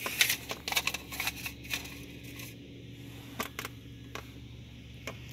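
Quick clicks and rustles of handling for the first two or three seconds, then a few scattered clicks, over a steady low hum inside a car cabin with the engine running.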